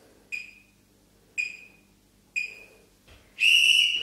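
Workout interval timer counting down: three short beeps about a second apart, then one longer, louder beep near the end signalling the end of the hold.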